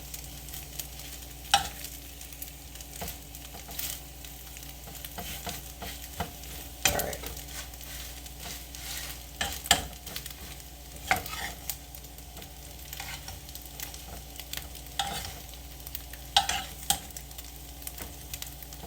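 Scrambled eggs with onions frying in a skillet: a steady low sizzle, with irregular sharp clicks and scrapes of a spatula against the pan as the nearly done eggs are stirred and turned.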